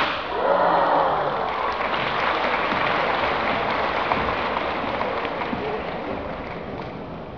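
Audience applauding, loudest in the first seconds and slowly fading.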